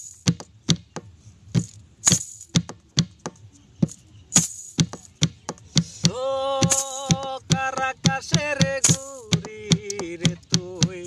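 Plastic jerrycan played as a hand drum, a steady beat of sharp slaps and taps. From about six seconds in, a man sings long held notes over it.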